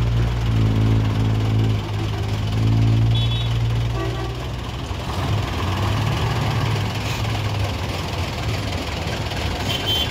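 Large diesel coach bus engine idling with a steady low hum, then running rougher and louder as the bus drives off the ferry ramp about halfway through.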